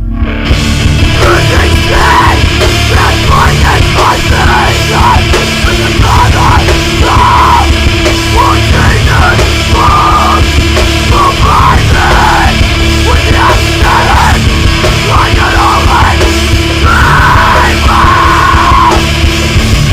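Metalcore band playing at full volume: distorted guitars, bass, drums and keys, with a screamed lead vocal over the top. The recording is mastered very loud.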